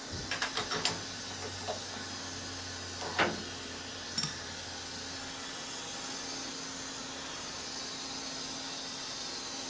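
Steady machine hum with a faint hiss, from an idle machine shop, with a few light clicks in the first second and two short knocks about three and four seconds in.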